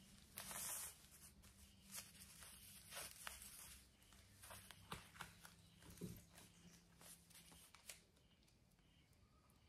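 Faint handling noise of a disposable diaper being put on: a short ripping sound about half a second in, then scattered soft rustles and clicks of the diaper and towel.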